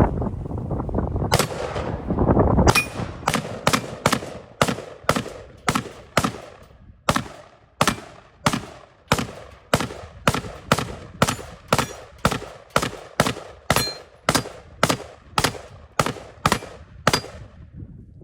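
Black Rain AR-15-style rifle fired semi-automatically in a long, even string of shots, about two a second, stopping near the end. Before the string there is one earlier shot and a rushing noise.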